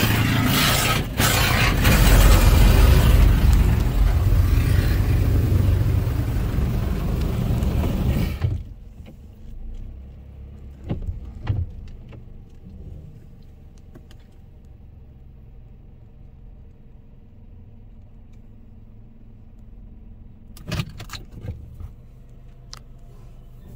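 High-pressure water jets of a DDI Robowash touchless car wash spraying against the car, heard from inside it as a loud, steady hiss that cuts off suddenly about eight seconds in. After that only a low steady hum of the wash equipment remains, with a few short knocks.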